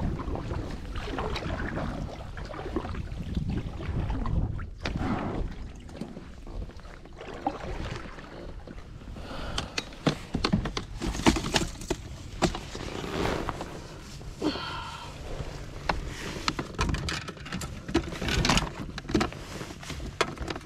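Kayak paddle strokes in the water beside an inflatable fishing boat, then a run of sharp knocks and rattles from a landing net holding a bass against a plastic milk crate. A short squeak sounds about two-thirds of the way through.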